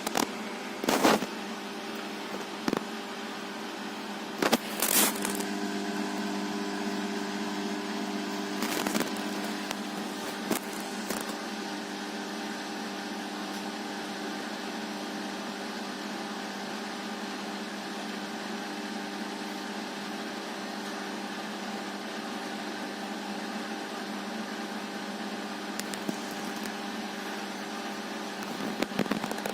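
Siemens iQ500 varioPerfect washing machine with iQdrive motor turning its drum during an interim spin with an unbalanced load: a steady motor hum and whine, with several sharp knocks in the first ten seconds or so, then running evenly.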